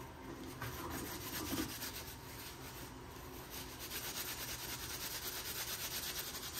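A cloth rubbing over a plastic car roof grab handle as it is wiped clean. From about halfway the wiping settles into quick, even strokes, several a second.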